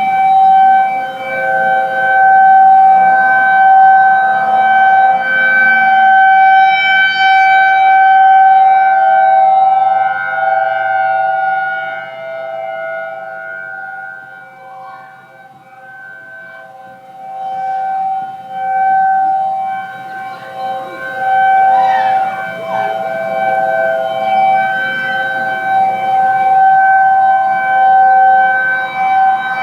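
Federal Signal Thunderbolt 1003A, Federal Signal 2001 and ACA Screamer outdoor warning sirens sounding a steady alert together in the distance, as several held tones that swell and fade as the sirens rotate, dipping about halfway through before coming back. The ACA Screamer sounds single-toned despite its dual-toned chopper, which the uploader thinks means its 12-port side is blocked.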